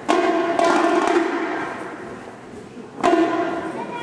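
Marching band brass and drums playing loud, sharply accented chords, each hit struck together and left to die away before the next.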